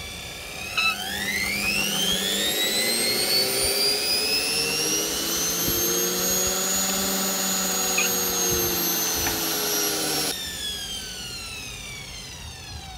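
Nidec Sole brushed commutator universal motor from an Indesit washing machine, run on a variac and driving the drum belt: its whine climbs as the power is brought up, then holds. About ten seconds in, the sound drops sharply and the whine falls away as the motor runs down.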